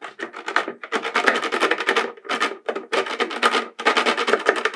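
Tip of a kitchen knife scraping the bottom of a plastic bucket in quick bursts of short strokes, with brief pauses between them, shaving off the rough plastic burrs left around holes melted through with a hot wire.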